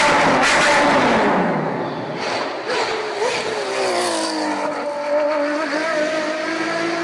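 Nissan Skyline R33 GTS-T's tuned turbocharged straight-six engine revving high, then the revs dropping away about a second in. It gives two short blips around three seconds in, then settles to a steady low speed.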